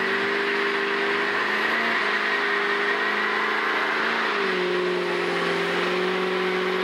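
Diesel pickup truck engine held at high revs during a burnout, its pitch steady and dipping slightly a little after four seconds in, with the spinning rear tyres adding a constant rushing noise.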